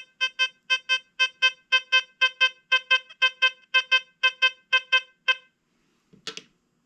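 XP Deus 2 metal detector sounding its target tone for a 1911 Liberty Head (V) nickel: a fast run of short beeps, all at the same mid pitch, about three and a half a second, stopping about five seconds in. A brief knock follows near the end.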